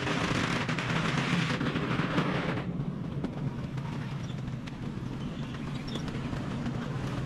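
A vehicle engine running steadily, with a loud hiss over it that cuts off suddenly almost three seconds in.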